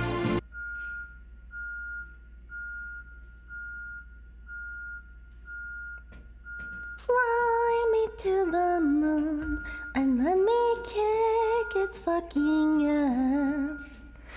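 A truck's reversing alarm beeping steadily, one high beep about every second. From about seven seconds in, a woman sings along with the beeps, louder than the alarm.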